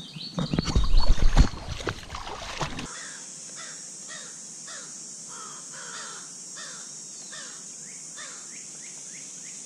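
Loud close knocks and rustling for the first few seconds. After that, a steady high insect buzz runs on, and a bird calls over it with a short harsh call repeated about twice a second.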